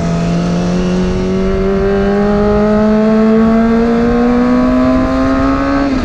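Kawasaki ZX-25R's inline-four engine pulling up through the revs in one gear through an aftermarket 'ayam geprek' exhaust with a dB killer fitted. The pitch rises smoothly and steadily, then falls away right at the end.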